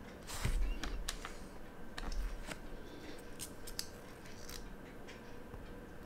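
Scattered small sharp clicks and taps from a pointed hand-setting tool pressing a hand onto the 24-hour subdial pinion of a quartz chronograph movement, with two dull bumps about half a second and two seconds in.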